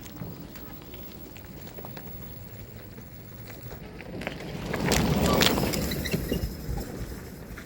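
Golf cart driving past, swelling to its loudest about five seconds in and then fading as it moves away.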